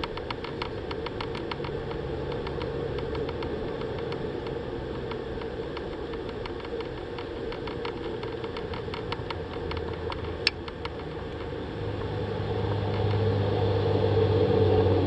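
Handmade fishing reel handle clicking rapidly and evenly as line is wound in on a hooked fish. The clicking stops about ten seconds in, after one sharper click, and a low drone grows louder near the end.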